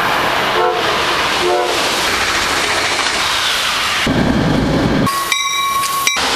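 Commuter train passing a station platform at speed, with two short horn blasts about half a second and a second and a half in. About four seconds in, the sound cuts to a low rumble from a moving train, then to a steady high tone for about a second near the end.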